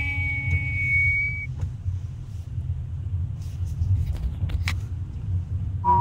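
Steady low rumble of wind and travel noise on the microphone while moving along a street. At the start, a held hummed note ends after about a second and a high whistled note a moment later.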